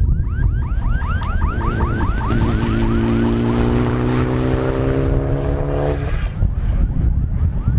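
A race car's engine at high revs, its pitch climbing steadily for about four seconds and then cutting off abruptly, heard through heavy wind buffeting on the microphone. A rapid repeating chirp, about five a second, runs through the first half.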